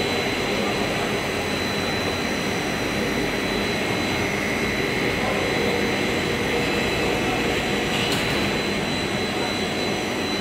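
Twin-screw plastic sheet extrusion line running: a steady, loud machine noise with a constant high-pitched whine. A brief hiss comes about eight seconds in.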